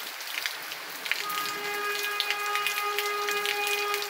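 Steady rain falling, with scattered drop ticks. From about a second in, a long steady pitched tone sounds over it for about three seconds.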